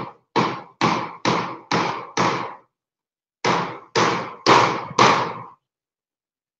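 Hammer blows driving nails through corrugated zinc roofing sheets, about two strikes a second, a short pause, then four more strikes.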